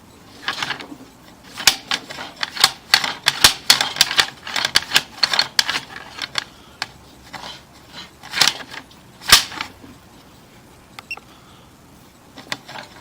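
Drain inspection camera and its push cable clattering in a 3-inch drain pipe: rapid, irregular sharp clicks and knocks that stop about ten seconds in. The camera head is being pushed against a restriction from existing plumbing fixtures that it cannot get past.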